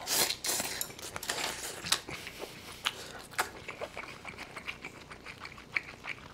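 Close-miked chewing of a big mouthful of beef bulgogi and kimchi: a louder noisy burst as the bite goes in at the start, then a run of wet, sticky mouth clicks and smacks.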